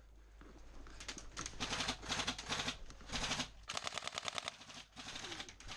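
Airsoft electric rifles firing several rapid full-auto bursts, a fast clatter of shots starting about a second in and coming again in the second half.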